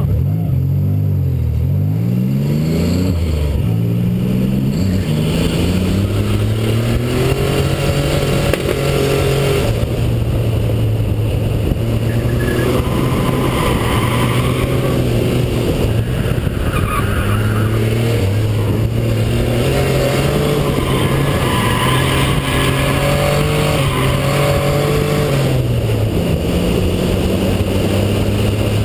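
Nissan Z31's engine driven hard on a track: it revs up sharply a few times in the first few seconds, then is held at high revs, rising and dipping as the throttle comes on and off.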